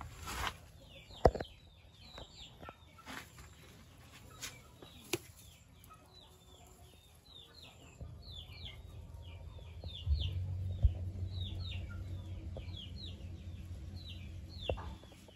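Chicks peeping, short high falling notes repeated a couple or more times a second throughout. A few sharp knocks come in the first seconds, and a low rumble underlies the last few seconds.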